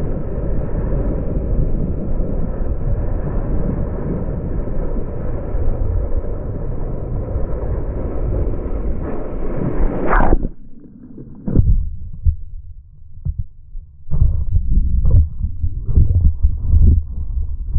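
Water rushing and spraying past a waterproofed GoPro as a finless cork alaia surfboard rides fast along a wave, a dense, muffled rush. About ten seconds in the rush ends with a sharp splash, then muffled low thumps and gurgles of churning water follow.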